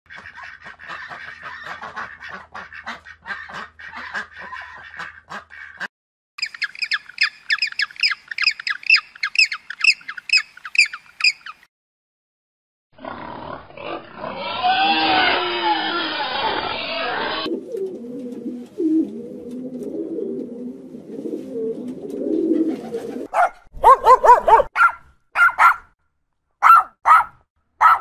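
A run of separate animal sounds: bird calls and rhythmic chirping for the first ten seconds or so, a pig grunting and squealing through the middle, and a dog barking several times near the end.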